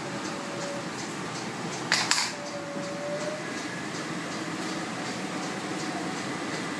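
Mark Andy 2200 flexographic label printing press running: a steady mechanical whir with a faint, even ticking, and a brief sharp clatter about two seconds in.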